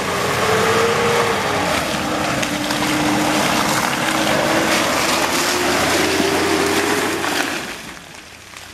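Mitsubishi Pajero 4WD climbing a muddy track under power, its engine running loudly with a pitch that rises and falls as it works up the slope. The sound drops off about a second before the end as the vehicle passes close by.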